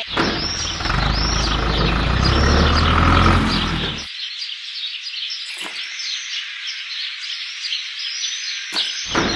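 Small birds chirping over and over, quick repeated high chirps. A steady low rumble underneath for the first four seconds cuts off suddenly.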